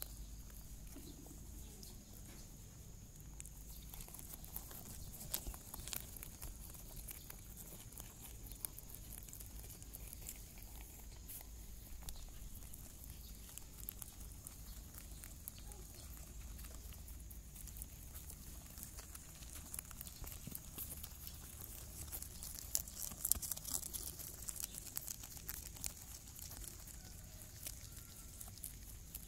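Faint, irregular small clicks and rustling from five-day-old rabbit kits squirming and suckling at their mother, growing denser about 23 seconds in.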